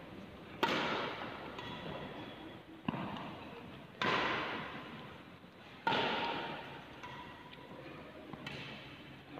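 Badminton racket strings striking shuttlecocks in a drill: about four sharp hits a second or two apart, each ringing on in the echoing hall.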